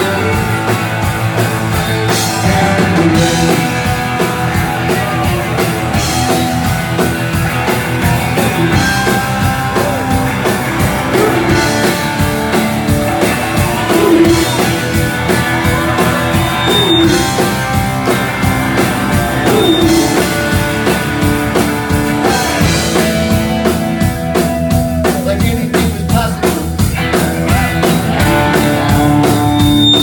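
Rock band playing live, heard from among the audience: electric guitar with bending notes over a drum kit, loud and continuous.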